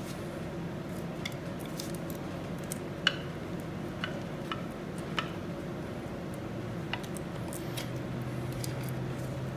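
A wide flat-blade screwdriver clicking and scraping against metal as it is worked around the drive shaft's rubber gaiter to lever it off the BMW K1200S gearbox: a dozen or so scattered light clicks, the sharpest about three seconds in, over a steady low hum.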